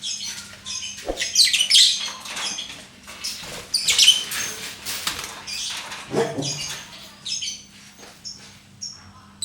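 Lovebird chirping in many short, high-pitched calls, irregular and unbroken by any long trill.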